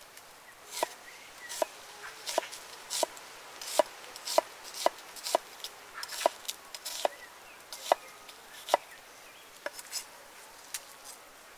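A large chef's knife slicing through an onion and knocking on a wooden cutting board, about fifteen sharp chops at one to two a second, beginning about a second in and stopping near the end.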